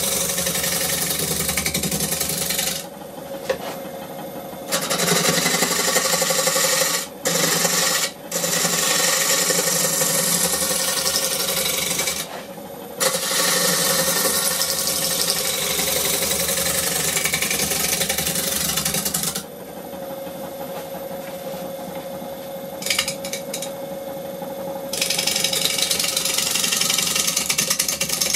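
A turning tool cutting a spinning honey locust bowl blank on a wood lathe: a steady cutting noise over the lathe's motor hum. The cutting stops several times, longest for about five seconds past the middle, leaving only the hum of the lathe.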